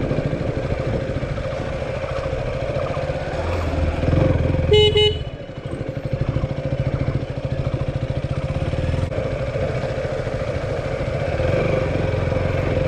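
Motorcycle engine running as the bike rides slowly over a rough dirt road, with one short horn beep about five seconds in.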